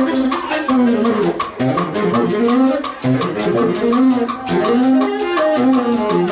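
Live brass-band music: a baritone saxophone and a trumpet play riffs over a steady drum beat from a marching bass drum rig.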